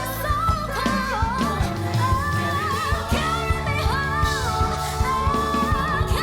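Pop-gospel music with a female lead vocal singing melismatic runs over sustained chords and a steady beat.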